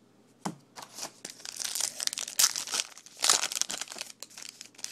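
A trading card pack's wrapper being torn open and crinkled in the hands: a knock about half a second in, then a dense run of irregular crackles.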